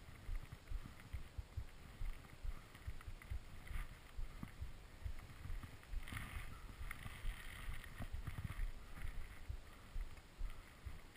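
Wind buffeting the microphone of a body- or ski-mounted action camera, with irregular low thumps, and a scraping hiss of skis on snow that swells for a few seconds past the middle.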